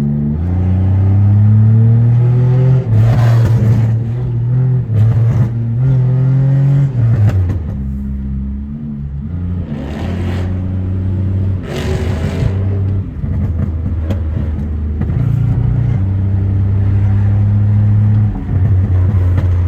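Tuned Pontiac Grand Prix GT's 3.8-litre V6 with a catless exhaust, driving and accelerating. The engine note climbs and then drops at the gear shifts, several times over. Several brief rushing noises cut across it.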